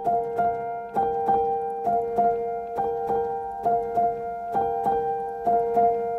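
Background music: keyboard notes played at a steady pace of about two a second over held tones.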